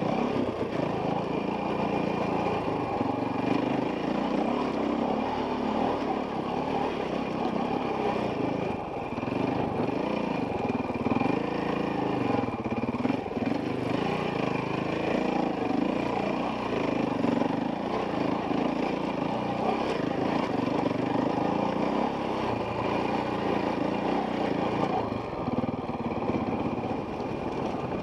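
Enduro dirt bike's engine running under the rider, revving up and down continually as the throttle is worked over rough rock.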